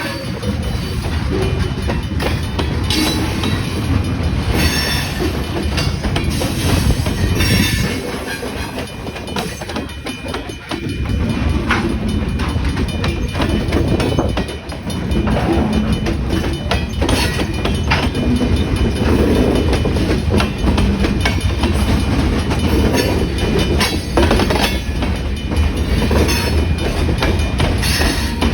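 Wisconsin & Southern freight train rolling past: a steady low rumble with wheels clicking over the rail joints, easing briefly twice.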